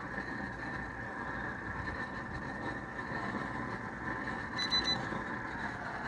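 Propane torch burning steadily into a small refractory furnace, a continuous roar. About four and a half seconds in, a quick run of high beeps from a hand-held infrared thermometer.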